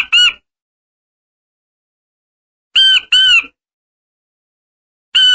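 King quail (blue-breasted quail) calling: short piping whistles, each arching up and then falling in pitch, given in quick twos or threes with groups about two and a half seconds apart. This is the species' lure call.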